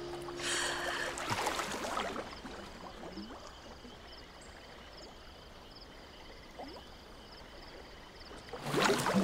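Water splashing as two swimmers duck under a lake's surface, then a quiet stretch, then loud splashing near the end as they come back up out of the water.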